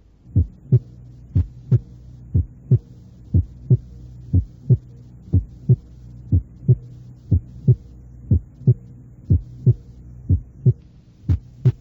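Heart sounds at the second left intercostal space: the first and second heart sounds beat as a lub-dub pair about once a second, the second sound single and not split, louder and higher-pitched than the first. A steady low hum runs underneath.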